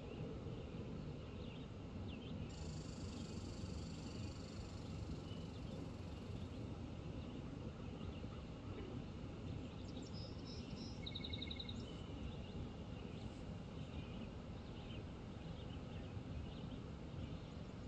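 Steady static-like hum of water running through the dam below. Over it come scattered bird chirps, a high thin buzz for a few seconds early on, and a fast bird trill about ten seconds in.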